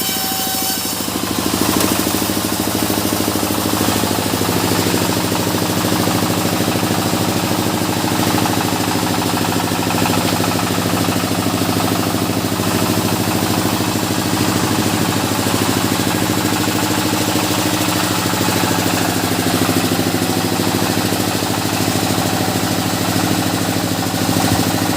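Sawmill machinery's engine running steadily at an even pitch.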